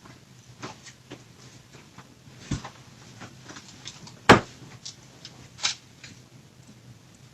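Scattered small knocks and clicks of toys being handled, with one sharp knock a little past the middle and a few louder clatters around it.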